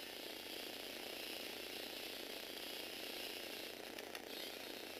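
A Lego Technic electric motor and its plastic gear train whir steadily as the radio-controlled tricycle drives. A few sharp clicks come about four seconds in.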